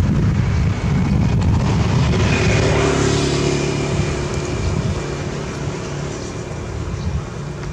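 A motor vehicle engine passing by, a steady hum that swells about two seconds in and fades away over the next few seconds, over a low rumble of wind on the microphone.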